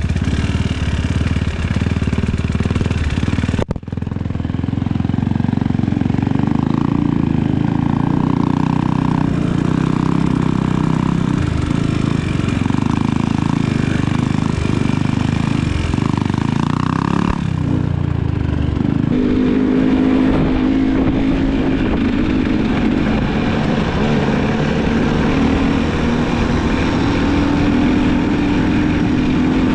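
Dirt bike engine running and revving on a trail ride, with a brief sharp dropout about four seconds in. About two-thirds of the way through, the note changes to a steadier drone.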